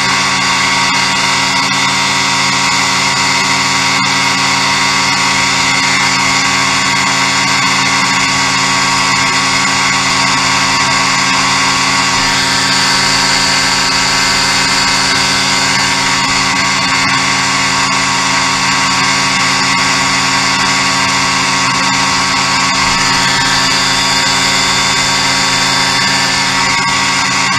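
Ultralight aircraft's engine and propeller running steadily in cruise flight: a loud, unchanging drone.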